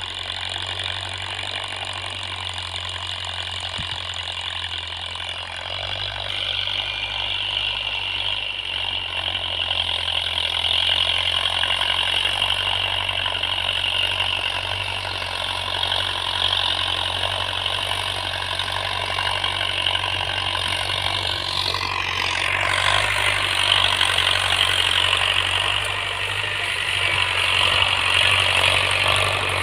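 72 hp John Deere tractor's diesel engine running steadily as it pulls a tined cultivator through the soil, growing louder as it comes closer.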